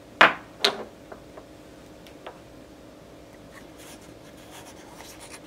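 An 18650 lithium-ion cell set down on a wooden desk: two sharp knocks about half a second apart, each with a short ring, then a few light taps and faint rustling.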